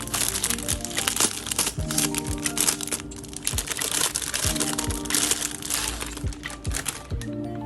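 Packaging crinkling and crackling as it is handled and opened, over background music with a steady beat.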